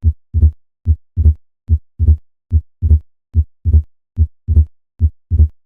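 Heart sounds of pulmonary hypertension: a steady lub-dub at a little over one beat a second, the second heart sound of each pair louder and longer than the first, marking a loud pulmonary component (P2 louder than A2).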